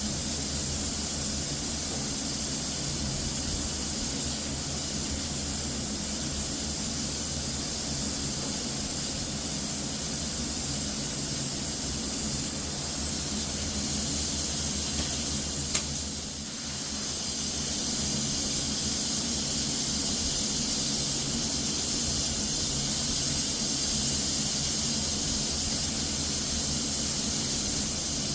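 Steady hiss of a compressed-air spray gun spraying Cerakote, with a single sharp click about halfway through and a brief dip in the hiss just after it.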